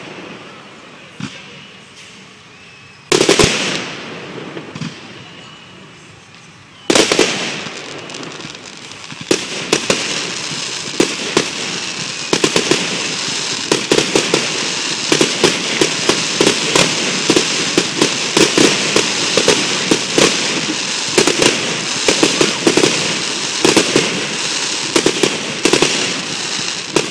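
Fireworks going off: two loud single bangs, each fading away, about three and seven seconds in. From about nine seconds a dense barrage of rapid bangs and crackling runs on without a break.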